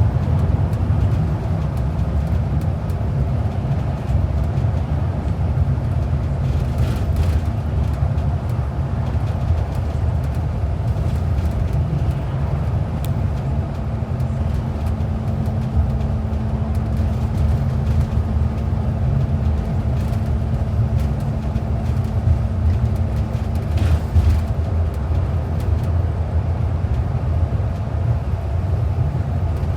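Steady low rumble of a moving bus's engine and tyres, heard from inside the bus. A faint steady hum rides on top for several seconds in the middle.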